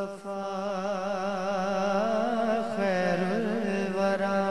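A man's voice singing long, wavering held notes without words, the drawn-out vocal opening of a naat recitation.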